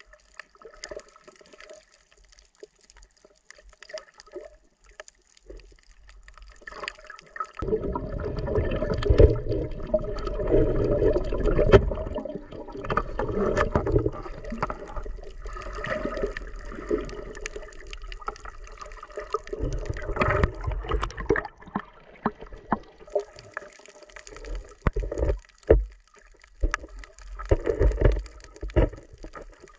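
Underwater water noise picked up by a submerged camera: muffled rushing and gurgling, loudest with a deep rumble from about eight to twelve seconds in, then scattered dull knocks near the end.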